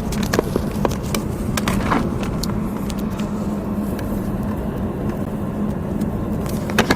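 Car engine running steadily with a low drone and rumble, with scattered light clicks over it.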